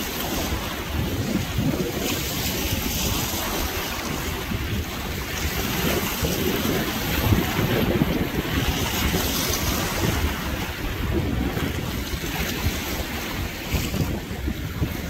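Wind buffeting the microphone, an uneven low rumble, over a steady rush of wind and waves.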